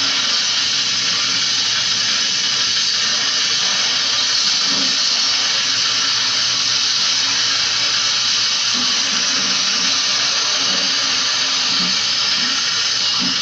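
Steady hiss of a water jet from a hose spraying onto the metal chassis of a window-type air conditioner as it is washed out.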